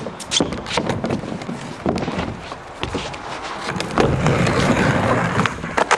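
Sharp knocks and clacks in the first couple of seconds, then skateboard wheels rolling over concrete from about four seconds in, with two sharp clacks of the board near the end.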